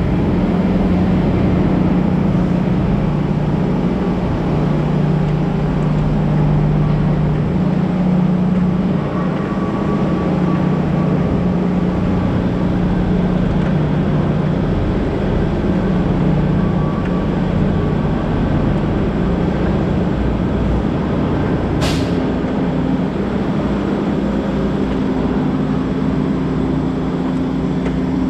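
Semi-truck diesel engine running at low speed, with a steady low drone, as it pulls an empty flatbed trailer. A brief sharp noise comes about 22 seconds in.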